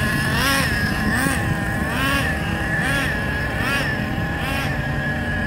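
Nitro RC car's small glow-plug engine revving up and down in short throttle bursts, about one rise and fall a second, over a steady high whine. The engine is being run in (broken in).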